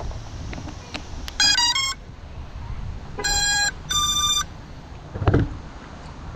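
Electronic startup beeps from an FPV quadcopter being powered up: a quick run of four stepped tones, then two longer beeps at different pitches. A brief thump follows about five seconds in.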